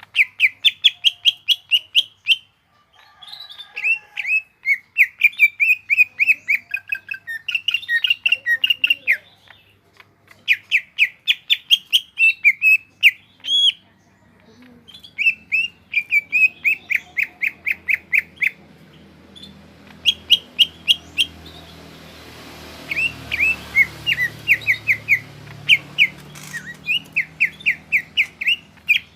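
A green leafbird (cucak ijo) singing loudly in rapid bursts of sharp, repeated chattering notes, phrase after phrase with short pauses between. A low hum runs underneath through the later part.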